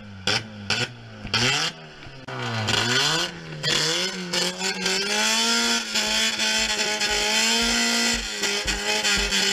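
A Citroën AX's four-cylinder engine being revved hard: a few quick blips with sharp cracks in the first two seconds, then the revs climb and are held high for about three seconds before dropping back near the end.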